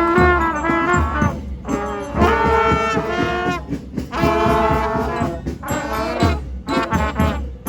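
Music played by brass instruments, with held notes over a steady drumbeat.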